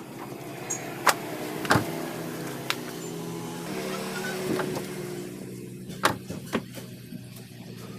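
Sharp knocks and taps from a rubber car floor mat being pulled out of the footwell and handled, the loudest two within the first two seconds. A steady low hum runs underneath.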